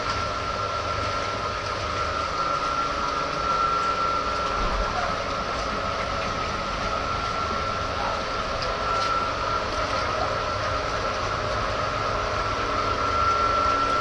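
Steady machine drone with a constant high whine, over water churning in a live-seafood holding tank.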